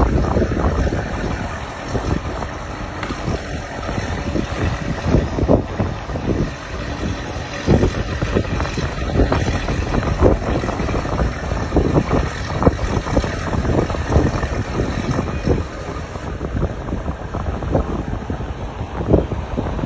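Low engine rumble with wind buffeting the microphone in irregular gusts.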